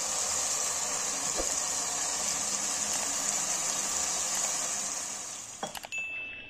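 Marinated mutton mince hitting hot oil and tomato masala in a frying pan, sizzling loudly and steadily. The sizzle dies away near the end, where a few sharp clicks and a brief high ringing tone follow.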